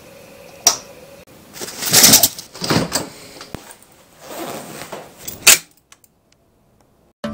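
Rustling of a padded winter jacket and camera handling close to the microphone: several noisy bursts, with a sharp click about half a second in and another about five and a half seconds in.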